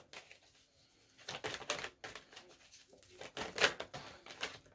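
A deck of oracle cards being shuffled and handled by hand: papery rustles and card flicks, with louder flurries about one and a half and three and a half seconds in.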